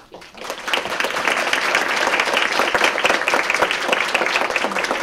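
Audience applauding: many hands clapping together, building up within the first second and then holding steady.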